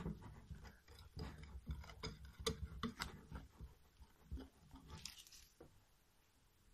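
Wire whisk stirring thick chocolate cake batter in a glass bowl: soft wet squelching with irregular light clicks of the wires against the glass. It grows quieter about five and a half seconds in.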